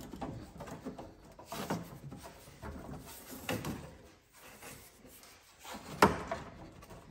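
SOUL stainless bypass exhaust pipe being worked and slid into its slip-fit joint: irregular metal rubbing and scraping, with a sharp clank about six seconds in.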